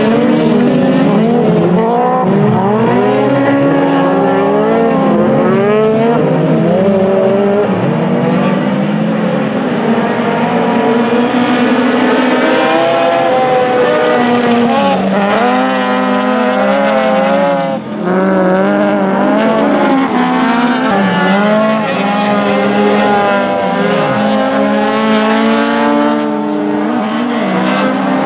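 Engines of rallycross race cars racing close together, revving hard and shifting through the gears, their pitch climbing and dropping again and again. The sound dips briefly about two thirds of the way through.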